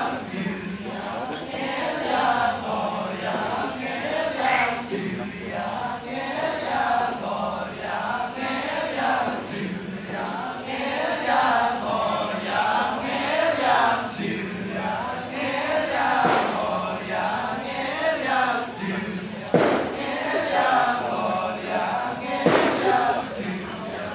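Kecak chorus of men chanting together in a fast, pulsing rhythm, with a low steady voice held beneath the chant. Now and then there is a sharp knock.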